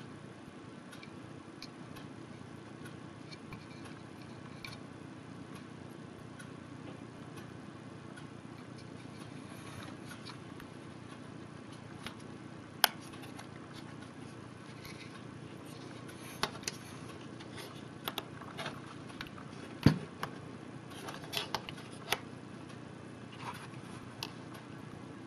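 Faint steady hum with scattered small clicks and taps as hands handle small clear plastic gadget cases and synth controls; the clicks come in the second half, the loudest, with a low thump, about 20 seconds in, followed by a quick cluster.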